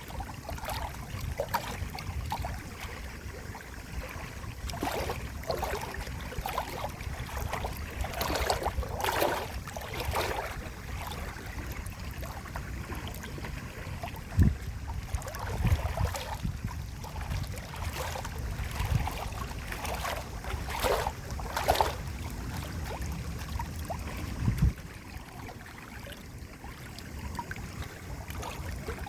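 Running water splashing and gurgling unevenly over a steady low rumble, with two short low thumps about halfway through and near the end.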